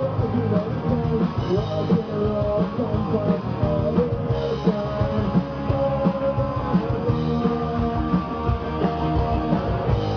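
Rock band playing live through a stage PA during a sound check: electric bass with sliding notes, electric guitar and drum kit.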